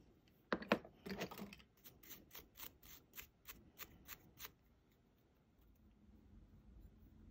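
A toothbrush scrubbing a small plastic model part. A few louder knocks and scrapes come about half a second in, then a run of short brushing strokes about three a second that stops about four and a half seconds in.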